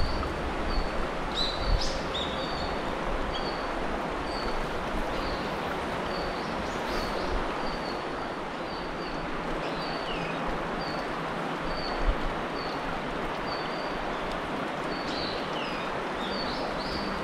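Woodland ambience: a small bird repeats short high chirps about once a second, with a few other falling calls, over a steady background hiss.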